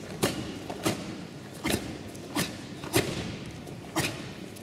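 Shotokan karate team of three performing a kata in unison: about six sharp cracks from their synchronised techniques, spaced irregularly, with a faint hall background between them.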